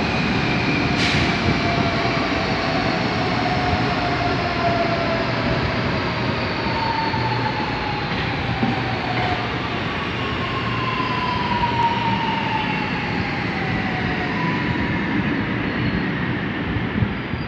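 A CPTM series 2070 electric commuter train running past the platform: continuous wheel-and-rail rumble, with several thin whines that slowly drop in pitch as the train slows. A single sharp click about a second in.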